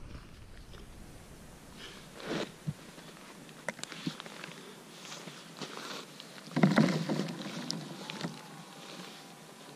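Close rustling and handling noises as a gloved hand moves a yellow jacket lying in the snow next to the camera, with scattered small clicks and knocks. The loudest rustle comes about seven seconds in, as the jacket is gathered up.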